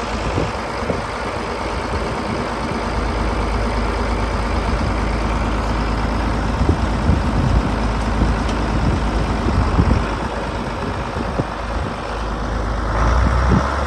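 John Deere 4010 tractor's six-cylinder engine running steadily. Its low rumble gets stronger about three seconds in and again near the end.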